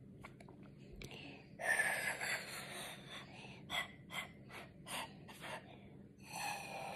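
A child sucking hard through a long looped novelty eyeglass straw, making airy hissing draws: one long draw, then a quick run of about six short sucks, then another long draw near the end.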